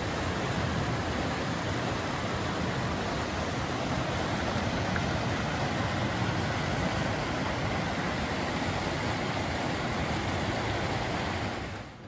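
River water rushing steadily, an even, unbroken noise of running water; it cuts off sharply just before the end.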